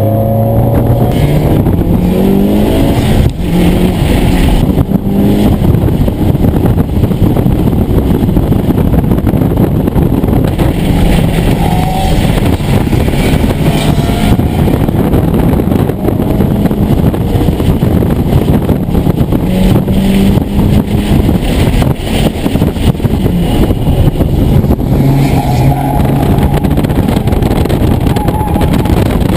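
Mitsubishi Lancer Evolution IX's turbocharged four-cylinder engine heard from inside the cabin under hard acceleration on track. It revs up through the gears, its pitch climbing in the first few seconds and again several times later, and runs loud throughout.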